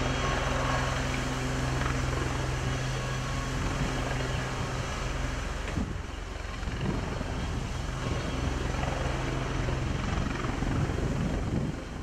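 Westland Lynx helicopter hovering low and coming in to land: continuous turbine and rotor noise with a steady low hum. About six seconds in, the hum drops away and the rotor sound becomes more uneven.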